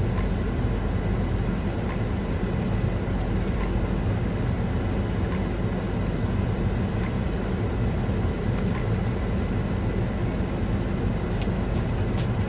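Steady low rumble inside a car cabin, with a few faint, sharp clicks scattered through it.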